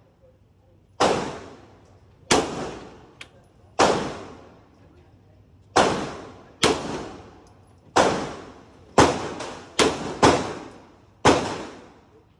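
9mm semi-automatic pistol firing ten shots at an uneven pace, spaced from about half a second to two seconds apart, each crack trailing off in a long echo.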